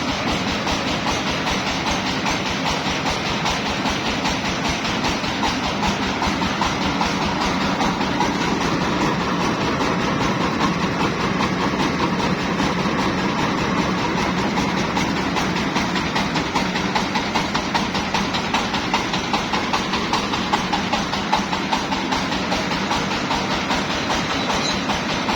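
Mobile rice milling machine running steadily, its engine and milling gear making a dense, even mechanical clatter with a fast pulse.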